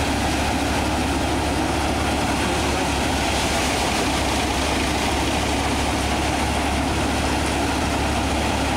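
Tractor-driven paddy thresher running steadily under load as rice straw bundles are fed into its drum. The Sonalika tractor's diesel engine drives it at a constant speed.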